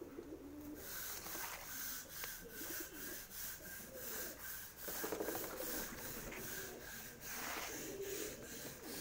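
Domestic pigeons cooing now and then, over frequent short scratchy rubbing noises.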